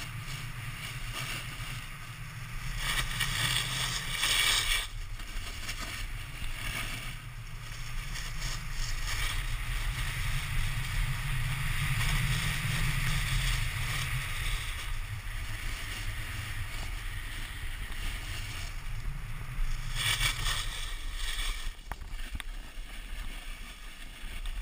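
Snowboard riding fast down a groomed slope: wind buffeting the pole-mounted camera's microphone as a low rumble, with the hiss and scrape of the board on snow swelling in several bursts. The rumble fades near the end.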